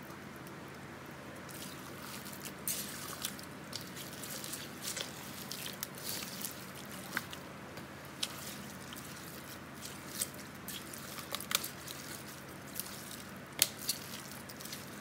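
A steel spoon mixing thick, oily tamarind pickle paste in a stainless steel bowl: irregular wet squelching with sharp clinks of spoon against bowl, starting about a second and a half in.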